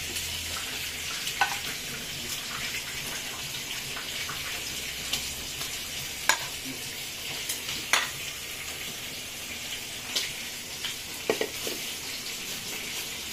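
Chicken frying in hot oil: a steady sizzle with scattered sharp crackles and pops.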